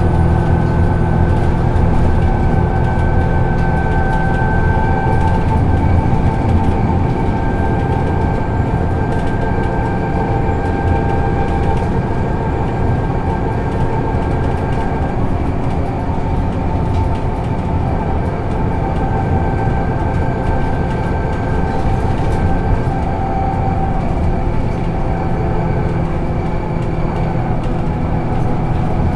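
Solaris Urbino II 18 articulated city bus running steadily: a low diesel drone with a thin whine from the drivetrain and ZF Ecomat automatic gearbox. The whine fades about halfway through.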